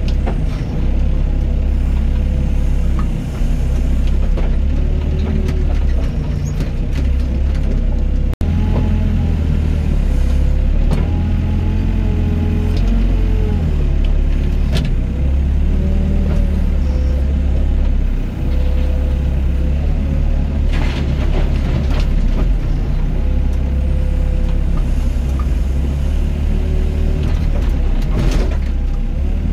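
Doosan DX55 mini excavator working: a steady low engine drone with a hydraulic whine that rises and falls as it digs and swings, and scattered knocks of soil and stone. The sound cuts out for an instant about eight seconds in.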